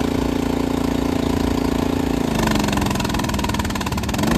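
Wheel line mover's small gas engine running its hydraulic pump, steady at first; about two seconds in its speed drops and it labors with a rapid pulsing for about two seconds, then picks back up near the end. The wheel line fails to move because two hydraulic lines are switched.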